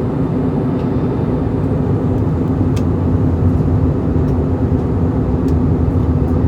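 Steady cabin noise inside an Airbus A320 in flight: a constant rush of airflow with the low drone of its IAE V2500 engines, a steady hum under it.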